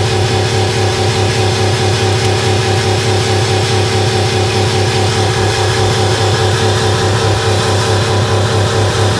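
Buick LeSabre's 3.8-litre V6 running steadily with yogurt drink in place of engine oil, a constant even drone that does not rise or fall.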